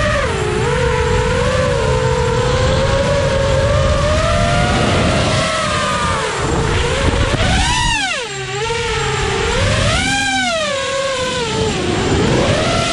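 GEPRC Mark4 FPV quadcopter with T-Motor F60 brushless motors whining in flight, the pitch rising and falling with the throttle. Sharp swoops up and down come about eight and ten seconds in.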